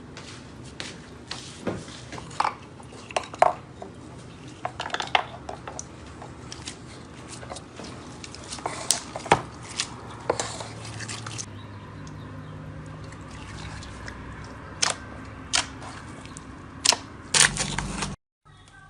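Slime being squeezed and stretched by hand: irregular wet clicks, pops and squelches.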